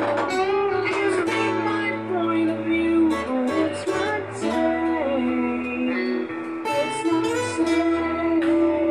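Acoustic guitar played with a mix of picked notes and strummed chords, the chords changing every second or so over a low bass line.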